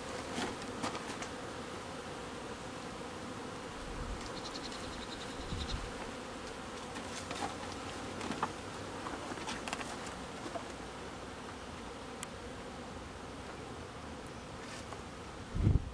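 Honeybees buzzing steadily in a crowd around an opened hive, with a few faint clicks. Near the end comes a loud low thump as a wooden hive box is set in place.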